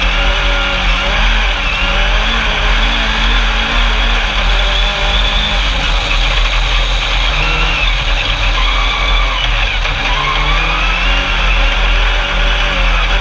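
Engine of an Alumicraft single-seat Class 10 off-road race buggy running hard, its revs rising and falling. A steady low wind rumble sits over the onboard microphone.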